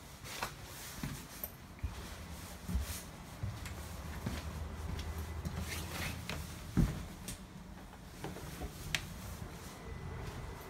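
Rubbing and handling noise with scattered clicks and knocks as a camera is carried through an electric train's cab and vestibule, over a low steady hum. The sharpest knock comes about two-thirds of the way through.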